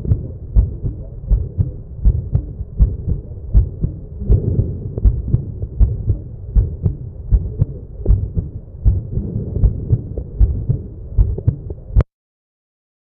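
Recorded heart sounds from an auscultation exercise: regular low heartbeats with a continuous murmur between the beats, cutting off abruptly near the end.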